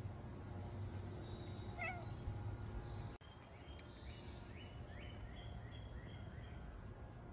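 Quiet outdoor background with a steady low rumble. A cat gives one short, faint meow just before two seconds in. From about four seconds in, a bird chirps a series of short rising notes in the background.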